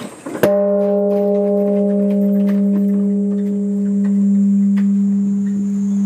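Large Japanese bronze temple bell (bonshō) struck once by the timekeeper with its hanging wooden beam about half a second in, then a deep hum that rings on with a slow swell and fade. This is the bell being rung to tell the hour.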